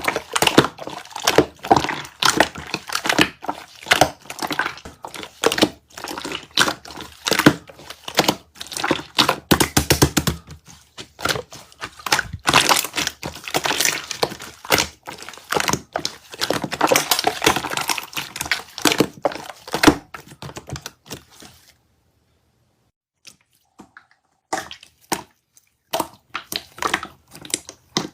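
Slime being squeezed and pressed by hand, giving a dense run of crackling clicks and pops. It stops for about three seconds near the end, then starts again.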